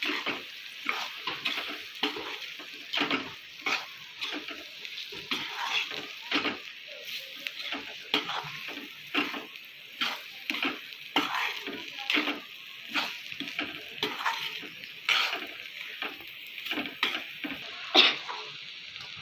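Steel spoon stirring and scraping fried potato and chilli mixed with crushed peanuts around a kadhai, in repeated strokes about one to two a second over a steady frying sizzle. One sharper scrape comes near the end.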